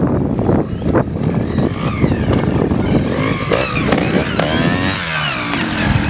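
Trials motorcycle engine revving up and down while riding a section, its pitch rising and falling several times with a falling rev a little before the end.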